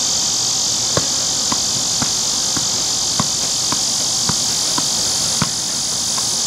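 A soccer ball juggled off the foot: about nine light taps, roughly two a second, which stop about five and a half seconds in. A steady insect chorus drones throughout and is the loudest sound.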